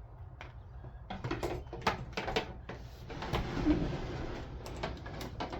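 Handling noises from diesel heater fuel tank parts: a run of sharp clicks and knocks, then a scrape or rustle about three seconds in, then a few more clicks near the end, over a steady low hum.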